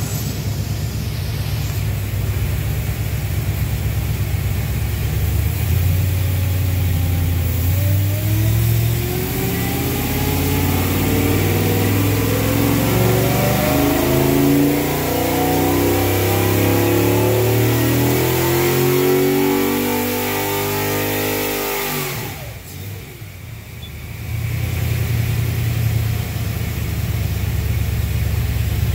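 GM LS V8 on an engine dynamometer, idling, then pulled under load with its revs climbing steadily for about fifteen seconds. The throttle then shuts suddenly, and after a brief lull the engine settles back to a steady idle.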